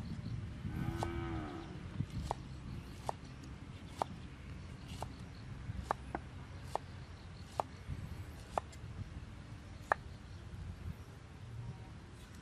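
Kitchen knife chopping on a wooden cutting board, single sharp strikes about once a second. A cow moos once, briefly, about a second in.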